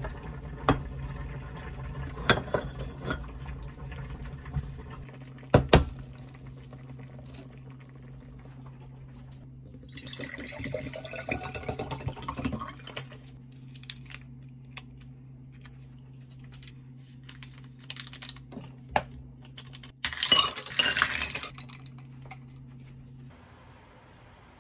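Tableware handling: a plastic rice container and scoop knock and click against a ceramic bowl several times, one knock loudest. Then water is poured from a plastic bottle into a glass, rising in pitch as the glass fills. Near the end comes a short, loud, noisy clatter, over a steady low hum.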